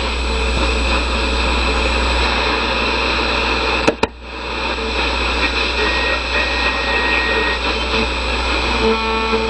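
Vintage Lafayette tube radio giving out loud static hiss between stations over a steady low hum, with two sharp crackles about four seconds in. Near the end a station with music begins to come through.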